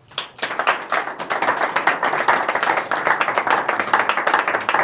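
Audience applauding: many hands clapping together, starting suddenly and then keeping up a dense, even clatter.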